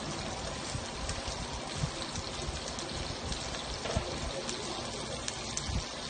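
Shrimp sizzling in a frying pan: a steady frying hiss with occasional small pops.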